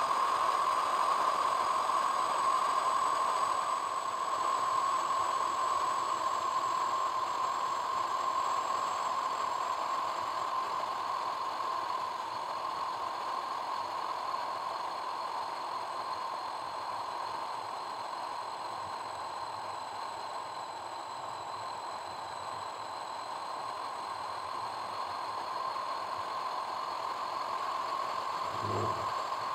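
Steady road noise of a car driving on a paved road: an even hiss of tyres, wind and engine, with a short low thump near the end.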